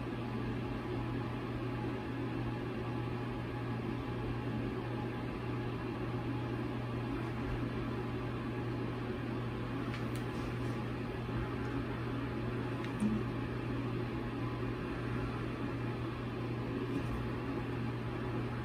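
Steady low hum over an even hiss of room noise, with one faint click about 13 seconds in.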